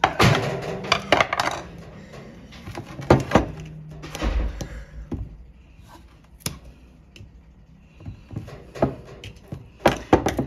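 Metal pick scraping and prying at the old, worn-out rubber seal seated in a cast-iron pump flange, with sharp clicks and knocks of the tool on the iron and the countertop. The loudest scraping is in the first second and a half and again about ten seconds in.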